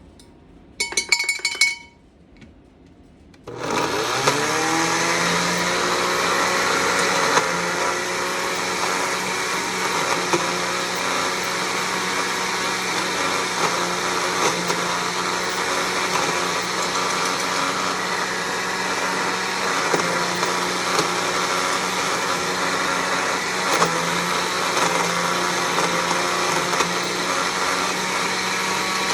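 A few light clinks about a second in, then an electric blending appliance's motor spins up just before four seconds and runs steadily at full speed, chopping walnuts and sun-dried tomatoes into a walnut 'meat'.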